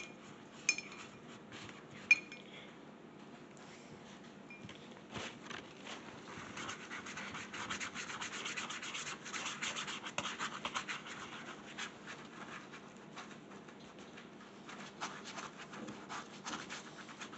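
Quiet scratching and rubbing of paintbrushes worked against mugs, a paint palette and paper towels, busiest in the middle. There are two sharp clicks in the first couple of seconds.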